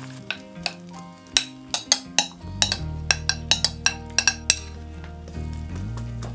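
A kitchen utensil clinking against a dish or pan in a quick, irregular run of sharp clinks that stops about two-thirds of the way through, with background music throughout.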